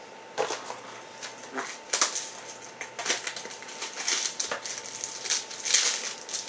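Baseball trading cards and their packaging being handled: irregular rustling, clicks and crinkles of card stock and wrapper, getting busier toward the end.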